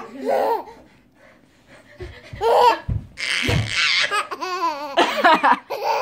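An eight-month-old baby laughing in repeated bursts: one laugh, about a second of quiet, then laughing again over and over.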